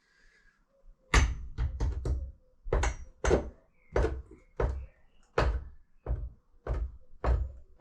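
A series of hard knocks, about fourteen in all and roughly two a second at an uneven pace, starting about a second in.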